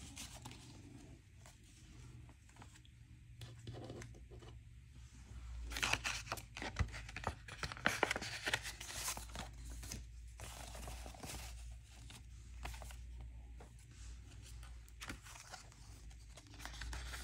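Paper cash envelopes and banknotes being handled: irregular rustling and crinkling as bills are pulled out of the envelopes, busiest from about five to eleven seconds in.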